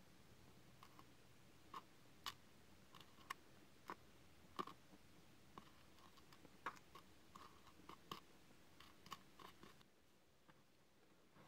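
Faint, irregular small clicks and taps, a few a second: metal tweezers setting tiny paper playing cards down on the floor of a miniature room. The loudest tap comes about four and a half seconds in, and the clicks thin out near the end.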